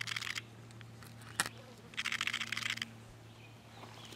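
A small animal hidden in a log pile gnawing on wood: two short bursts of rapid scratchy ticking, the second about two seconds in, with a single sharp click between them.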